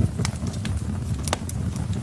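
Wood fire burning in a fireplace: a steady low rumble of the flames with sharp crackles and pops from the logs, the loudest pop a little past the middle.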